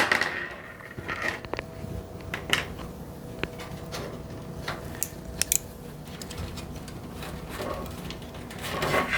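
Hands working a PC case's front I/O panel unit and its cables through the case, giving scattered light clicks and taps over a soft rustle.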